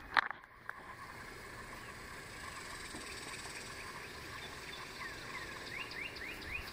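Steady quiet outdoor background with a couple of sharp knocks at the very start, and near the end a quick run of five or six short rising chirps.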